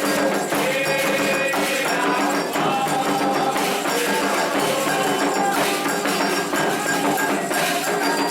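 Candomblé ritual music: hand drums and a struck metal bell keep a steady, driving rhythm under singing voices chanting to the orixás.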